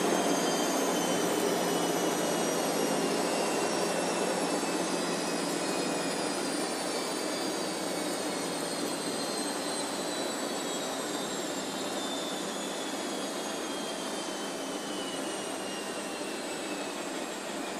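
Washing machine spin cycle winding down: a steady rushing hum with high motor whines that slowly fall in pitch as the drum slows, getting gradually quieter.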